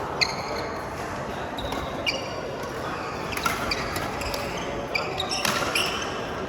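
Badminton rally in an echoing hall: rackets striking the shuttlecock, with short, high squeaks of court shoes on the floor every second or so and a sharper hit about five and a half seconds in.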